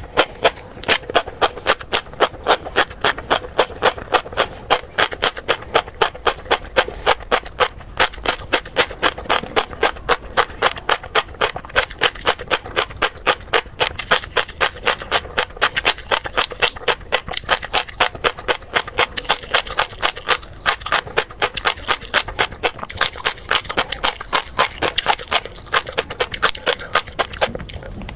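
Close-miked chewing of tobiko (flying fish roe): a rapid, continuous run of sharp crunches and pops, several a second.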